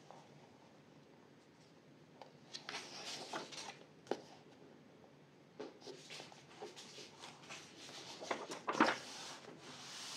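Paper pages of a coloring book being turned and pressed flat by hand: a few short rustles and slides of paper, the loudest near the end.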